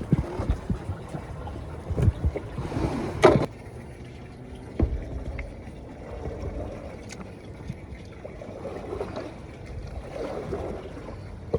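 A small dinghy being paddled: water splashing and lapping, with several knocks, the loudest about three seconds in.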